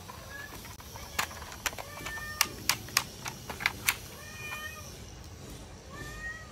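Sharp plastic clicks and snaps as a toy revolver and its battery cover are handled and the cover is pulled off; the clicks are the loudest sounds. Several short cat meows come in between them.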